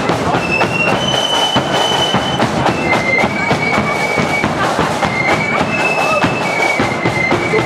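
Marching flute band playing a tune: shrill flutes holding long high notes that step from one pitch to the next, over a steady, rapid drum beat.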